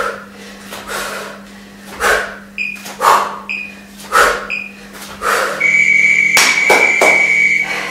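An interval timer gives three short high beeps about a second apart, then one long beep of about two seconds, signalling the end of a 50-second work interval. Heavy breaths are heard roughly once a second throughout.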